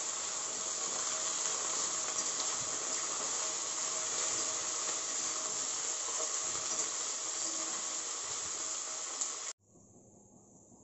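Chopped vegetables sizzling in hot refined oil in an aluminium kadai as they are stir-fried and half-fried. The sizzle is a steady hiss that cuts off abruptly about nine and a half seconds in.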